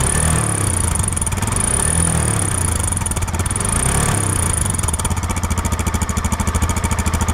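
Idling engine with an abnormal noise from the exhaust pipe. A high whine comes and goes during the first five seconds, then the running turns into a fast, even pulsing.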